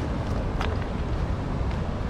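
Wind buffeting the microphone outdoors: a steady low rumble with a fainter hiss above it.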